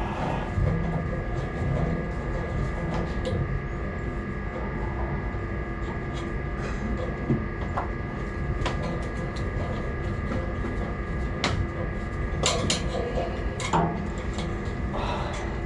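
Steady machinery hum with a few constant whining tones, over which hand tools click and tap sharply on metal at irregular moments while working a loose bearing cover plate off its shaft.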